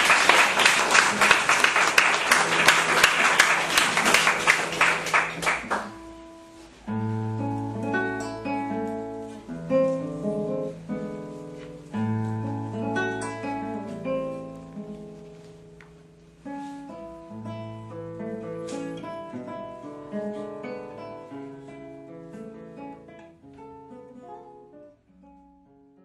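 Audience applauding for about six seconds, then slow solo plucked-string music, single notes ringing and dying away, growing quieter until it stops near the end.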